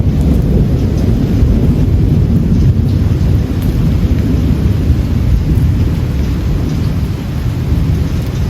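Long rolling thunder from a thunderstorm: a heavy, continuous deep rumble that eases off slightly toward the end, with rain falling underneath.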